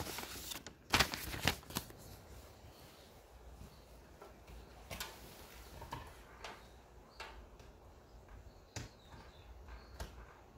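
Paper instruction sheet rustling in a quick cluster in the first two seconds, then scattered light clicks and knocks as a plastic plug-in power adapter is handled at a wall outlet.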